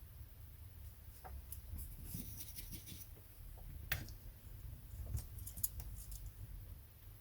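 Light, scattered clicks and taps of hand soldering work on a small circuit board's header pins, with a sharper click about four seconds in and two more a second or so later, over a low steady hum.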